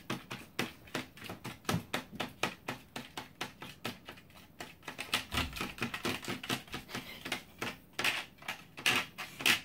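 A small plastic spoon clicking and scraping quickly against a plastic candy-kit tray while stirring powder and water into a Popin' Cookin' jelly mix, several clicks a second. A few louder clicks come near the end.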